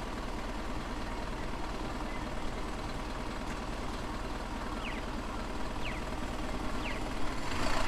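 City street traffic with a vehicle engine running steadily as a low hum. Three short, high, falling chirps come about a second apart midway, and the traffic noise swells near the end.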